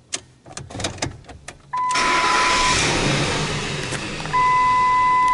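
A few light clicks, then about two seconds in the Ford F-150's 4.6 V8 starts and runs. A steady electronic beep sounds twice, once just before the start and again near the end.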